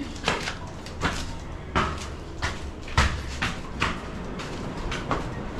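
A series of irregular knocks and clatters, about a dozen, with the loudest near the middle.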